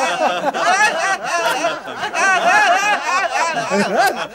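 Several people laughing together, many overlapping voices in quick repeated 'ha-ha' pulses.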